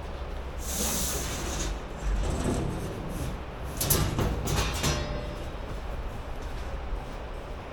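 Garage metalwork noises: a hiss lasting about a second, then a cluster of sharp metallic clanks about four seconds in, over a low rumble.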